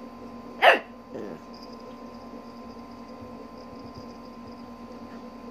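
A small puppy gives one sharp, loud bark about a second in, followed right after by a softer yap that drops in pitch.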